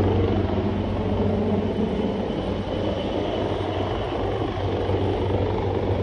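Helicopter hovering, its rotor and engine making a steady low drone.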